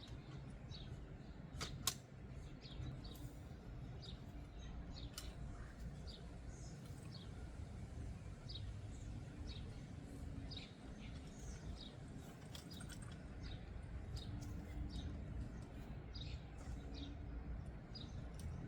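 Faint outdoor ambience: small birds chirping in short, high notes again and again over a low steady rumble, with two sharp clicks about two seconds in.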